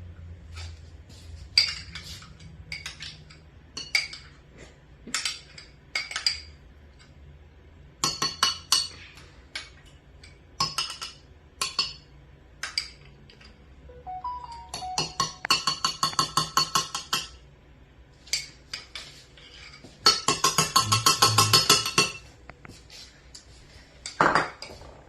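A spoon clinking and tapping against a mixing bowl as sour cream is scooped into the creamed butter, sugar and egg batter and mixed in. Scattered single taps, then two bursts of rapid stirring clatter, one in the middle and a longer one about two-thirds through.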